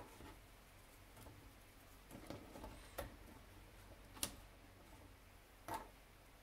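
Wooden clothespins being clipped onto a wire wreath frame: about four faint, separate clicks of wood on wire, with light scuffing in between.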